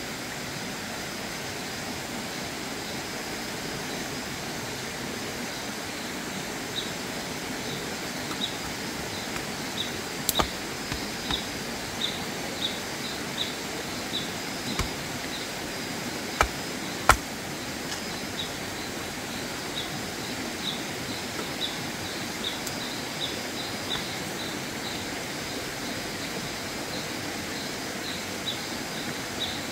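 Steady outdoor background hiss with short, high chirps repeating irregularly, and a few sharp cracks around the middle.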